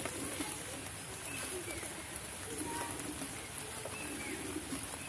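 A dove cooing: short low coos repeated about every second, over a steady high hiss.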